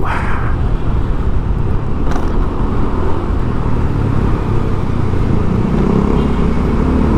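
Steady engine hum and road noise of a moving road vehicle.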